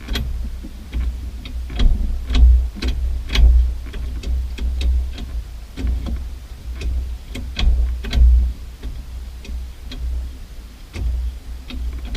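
Irregular sharp clicks and light metallic knocks, about two a second, with dull low thumps underneath: hand tools working on the MGW shifter's mounting hardware.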